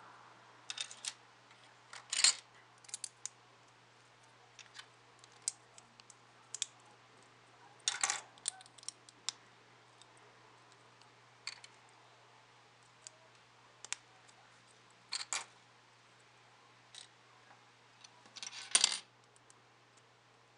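Plastic Lego bricks clicking and clattering as they are picked from a pile and pressed together, in scattered sharp clicks with louder clusters about two, eight, fifteen and nineteen seconds in.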